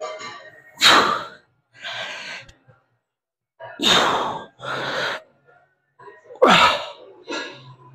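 A man's hard breathing during lying leg curl reps: three pairs of forceful breaths, each a loud one followed by a softer one, about every two and a half to three seconds.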